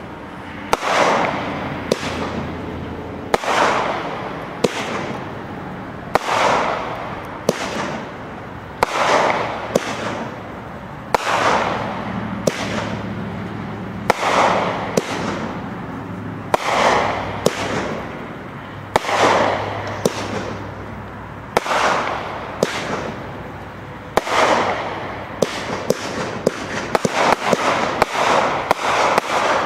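King of Brocade Crown 25-shot firework cake firing: a sharp shot about every second and a quarter, each followed by a fading rush of noise as the shell bursts. Near the end the pops come thicker, in a dense crackle.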